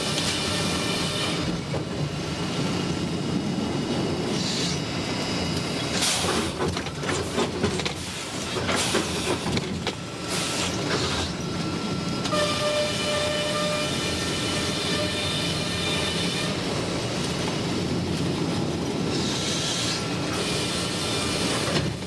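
Sawmill head rig at work, heard from inside the sawyer's booth: the log carriage running on its track and the saw cutting pine, a loud steady machine noise with a run of louder, harsher cutting noise between about six and eleven seconds in.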